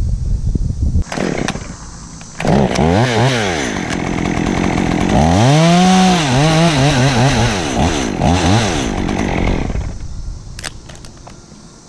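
Stihl chainsaw revving, its engine pitch swinging up and down several times from about two seconds in, then dropping away near the end.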